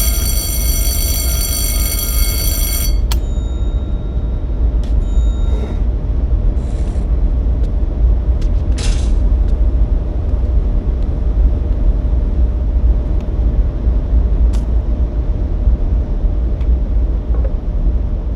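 Steady, loud low vehicle rumble. A buzzing tone stops about three seconds in, then come a few short hisses, the clearest about halfway through, and scattered clicks.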